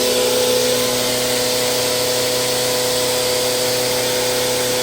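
Dry masala pulverizer, driven by two single-phase 2 HP electric motors, running at speed: a loud, steady hiss of grinding with an even hum.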